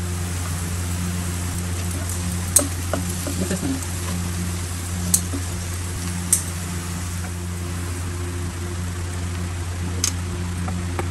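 Onion masala sizzling in oil in a non-stick kadai, with a steady low hum underneath. A wooden spatula stirs it, giving a few sharp knocks on the pan. Near the end a steel plate taps the pan as grated boiled egg is tipped in.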